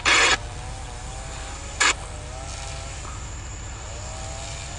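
Low, steady engine rumble with an even pulse. A burst of scanner-radio static cuts off just after the start, and a second short burst comes just under two seconds in.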